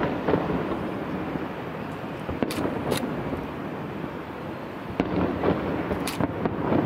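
Distant aerial fireworks shells going off as several sharp bangs at irregular intervals, the first about two and a half seconds in, over a steady background noise.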